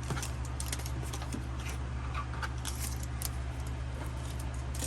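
Pokémon trading cards being handled and sorted: a run of light, irregular clicks and rustles as cards are flicked and set down, over a steady low hum.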